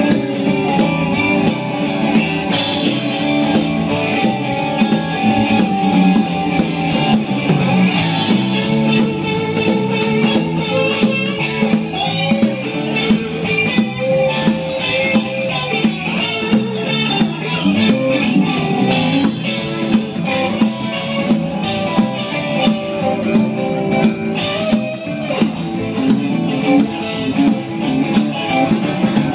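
Live band playing rock: electric guitar over a drum kit, with a cymbal crash three times.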